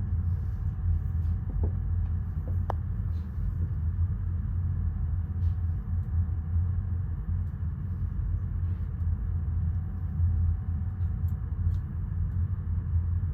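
Steady low hum of a standing electric commuter train's onboard equipment, heard inside the carriage while the train waits at a halt after an emergency stop, with a faint steady whine and a few faint clicks.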